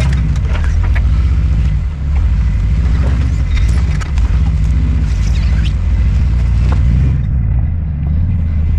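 4x4 GMC Safari van's engine running at low revs as it crawls a rocky trail, with scattered knocks and crunches of tyres on rock.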